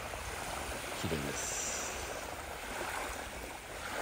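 Small waves lapping on a sandy shore, with wind rumbling on the microphone. A brief voice is heard about a second in.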